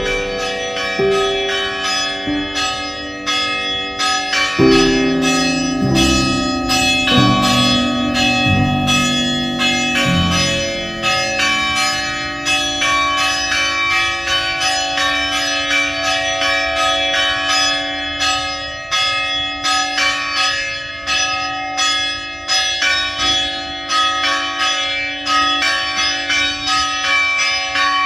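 Church bells ringing in rapid, overlapping strikes, their tones ringing on under each new stroke. A few lower bell notes step downward about five seconds in.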